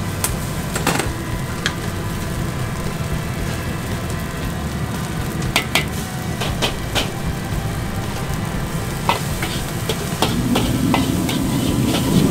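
Fried rice being stir-fried in a wok: a metal ladle clinks and scrapes against the wok at scattered moments over the steady low roar of the gas wok burner. The sizzling grows louder near the end as the rice is tossed over the heat.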